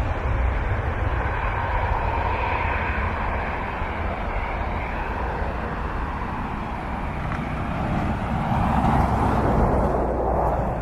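Jet engines of a Boeing 737-800 airliner (CFM56-7B turbofans), a continuous rushing roar with a deep rumble that swells louder about eight seconds in, as the aircraft passes near.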